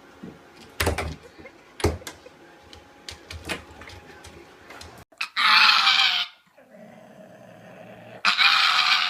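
A dog's voice, loud and harsh in two stretches of about a second each in the second half, after scattered sharp knocks and clicks.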